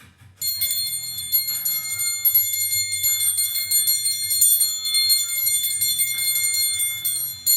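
A bell rung rapidly and continuously, starting about half a second in: a bright metallic ringing with fast repeated strikes, made as noise-making in appreciation of frontline workers.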